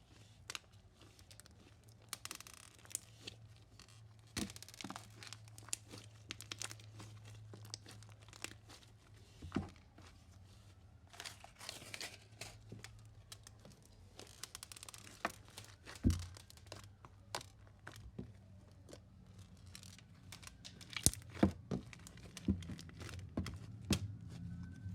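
Marshmallow slime packed with beads being kneaded and stretched by hand: irregular sticky crackles and clicks, with beads dropping out of it.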